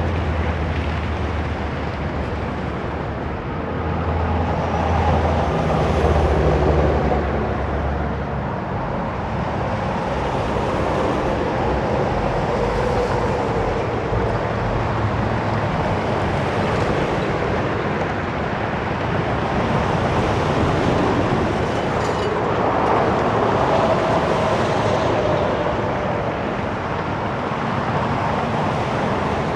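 Heavy highway traffic: a steady wash of tyre and engine noise, with vehicles swelling past one after another and the low rumble of commercial trucks going by.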